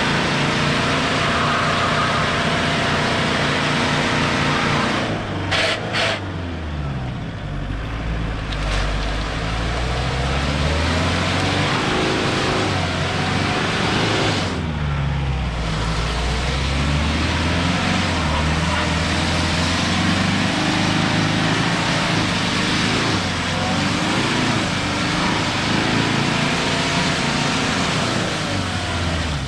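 Mitsubishi Shogun Sport 2.5 TD's four-cylinder turbodiesel working in the mud, its revs rising and falling again and again as the street-tyred wheels struggle for grip in deep ruts, over a constant hiss of tyre and mud noise. A couple of brief knocks come about six seconds in.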